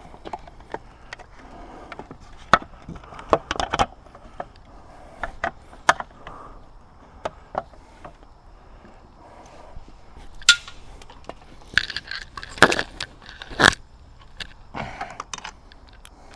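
Hands handling and fitting hard plastic and metal parts during reassembly of a Minn Kota Terrova trolling motor: irregular clicks, knocks, clinks and scrapes, in bunches about three seconds in, around ten seconds in, and again near the end.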